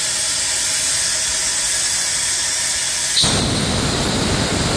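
Live steam hissing steadily from the fire-tube boiler. About three seconds in, the half-inch engine-outlet ball valve is opened, and steam blasts out of it with a short squeal and a much louder, deeper rush that cuts off sharply at the end.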